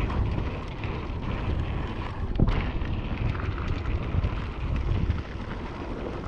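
Wind rushing over the action camera's microphone as a mountain bike rolls fast down a dusty dirt singletrack, with tyre rumble and one sharp knock from the bike about two and a half seconds in.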